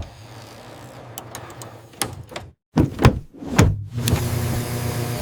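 Door sound effects: a faint low hum with a few light clicks, then three sharp thuds around the middle. A louder steady low hum starts about four seconds in.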